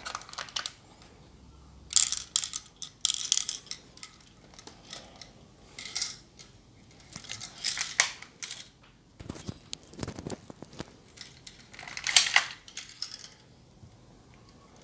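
Hands handling an airsoft Glock 17 pistol, its magazine and glass BBs: irregular clicks, rattles and rustles every second or so, loudest about 2 s and 12 s in.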